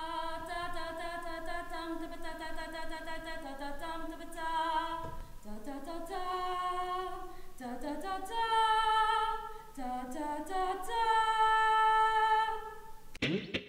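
Voices singing a cappella, holding long notes that step up and down in pitch. Near the end it cuts abruptly to music with a quick, regular beat.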